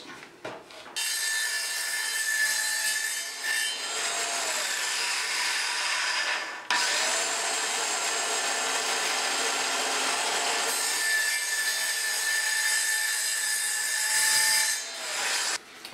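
Cordless circular saw making shallow, 10 mm deep cuts across a length of 3x2 softwood, the kerfs for a notch. It starts about a second in and runs through one cut. It stops sharply near seven seconds and starts again at once, running through a second cut until just before the end.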